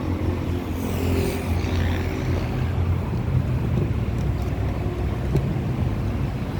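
Vehicle engine running steadily with a low hum.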